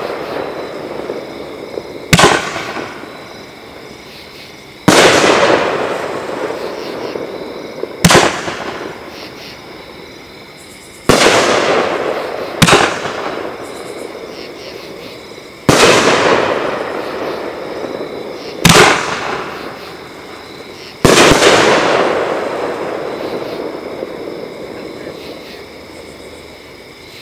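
Consumer 500-gram tube-rack firework cake firing 3-inch aerial shells, about one every five to six seconds. Each shot is a sharp crack at launch followed about three seconds later by a louder bang as the shell bursts, which then fades away over several seconds.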